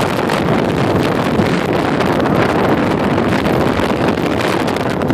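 Wind buffeting the microphone: a loud, steady rushing noise with no clear engine tone.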